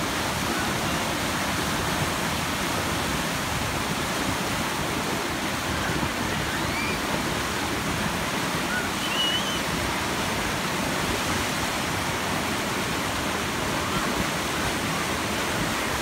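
Steady rushing of churning whitewater in the rock-lined channel of a river rapids raft ride.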